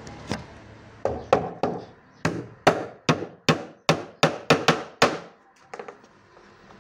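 Hammer blows on wood, about fifteen in all: a few spaced strikes, then a quicker run of about three a second that stops a little after five seconds in.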